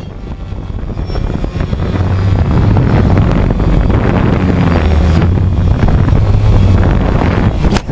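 Steady rotor noise of a drone flying low, building over the first couple of seconds and then cutting off suddenly near the end.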